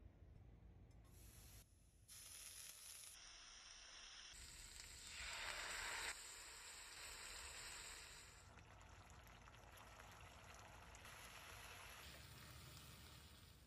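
Faint sizzling of food frying in hot oil in a pot, in short segments that change every second or two. It grows louder about five seconds in and cuts off suddenly just after six.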